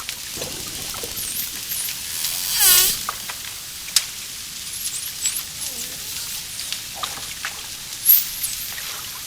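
Dolphin vocalizing: several high whistles sweeping up and down, a loud buzzing call near the middle, and a single sharp click about four seconds in.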